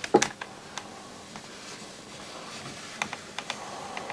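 A few scattered sharp clicks and light knocks of handling as the camera is moved into a new position, over a faint steady hiss.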